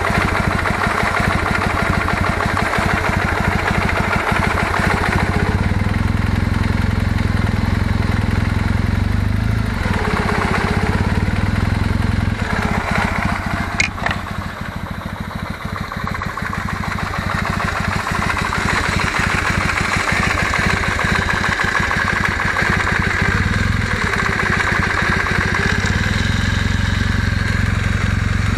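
Kawasaki W650 parallel-twin engine idling steadily while still not fully warmed up, with a sharp click about halfway through and a brief dip in the engine sound after it. The owner is listening for a knock that appears once the engine is warm and grows gradually, which he puts down to the mesh of the camshaft's drive and driven gears.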